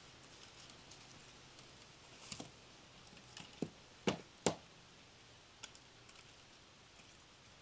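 Split firewood logs knocking against each other as they are lifted off a woodpile and gathered into an armload: a few scattered sharp wooden knocks, the loudest two in quick succession about four seconds in.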